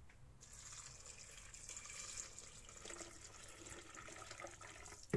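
Hot water pouring from a plastic measuring jug into the stainless-steel bowl of a Monsieur Cuisine Smart food processor, splashing onto chopped beetroot. The pour starts about half a second in and runs steadily, and a sharp knock comes right at the end.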